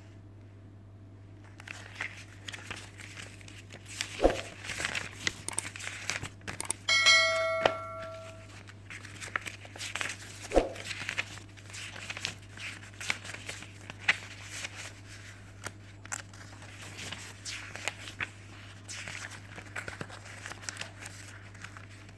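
Paper instruction manuals and leaflets rustling and crinkling as they are leafed through and handled, with two soft knocks. About seven seconds in, a short bell-like ding rings for about a second, the loudest sound. A steady low hum runs underneath.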